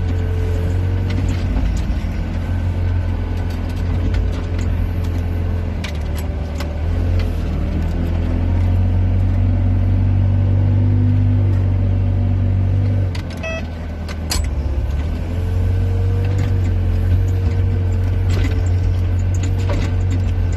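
Excavator's diesel engine running under working load, heard from inside the cab, with a wavering whine and scattered rattles and knocks. The engine note swells through the middle, drops briefly about two-thirds through, then picks up again.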